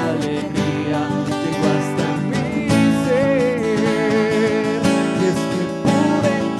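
A Spanish love ballad with acoustic guitar accompaniment, and a man's voice holding one long wavering note from about three seconds in.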